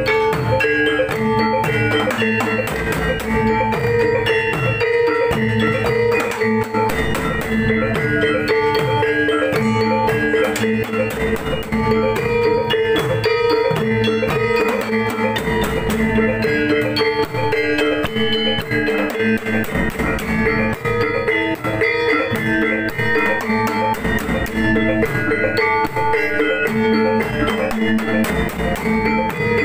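Javanese gamelan accompaniment for a reog dance: drums, kettle gongs and metallophones playing a fast, driving interlocking pattern without a break, with steady ringing pitches held under the strokes.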